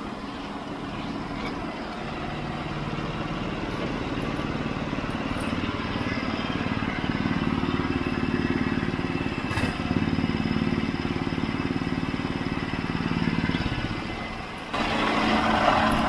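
Small gasoline engine on a portable band sawmill running steadily, its pitch and level stepping up a few times as the hydraulic control levers are worked. A louder rushing noise comes in near the end.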